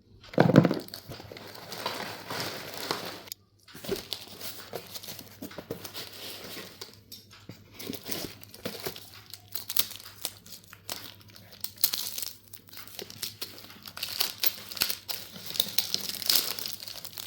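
Packaging crinkling and tearing as a pack of slate pencils is opened and handled, with many small sharp crackles. A thump comes about half a second in.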